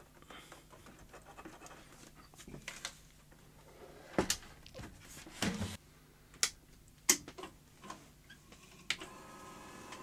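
Scattered short clicks and knocks of handling as the remote-control receiver's plug and box are fitted to a Grundig 2x4 Super video recorder. A faint steady hum starts about a second before the end.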